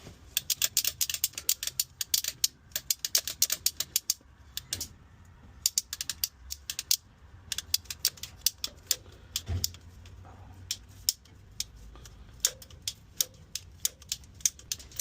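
Klein Tools ratcheting cable cutter being pumped through 3/0 cable: runs of sharp ratchet clicks, several a second, broken by short pauses, with the clicks thinning out about two-thirds of the way through.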